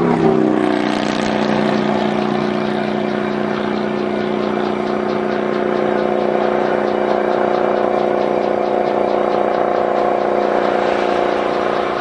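Diesel-electric freight locomotives, a Utah Railway MK50-3 and an Australian-built EMD SD50 with EMD 16-645 prime movers, running past. The engine note drops in pitch in the first second as the grey MK50-3 goes by, then holds as a steady engine drone from the SD50, mixed with wheel and rail noise.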